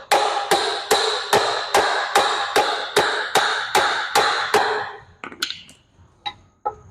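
About a dozen steady, ringing hammer blows on steel, about two and a half a second, driving a U-joint bearing cap into or out of the driveshaft yoke. They stop about five seconds in, followed by a few light metal clinks.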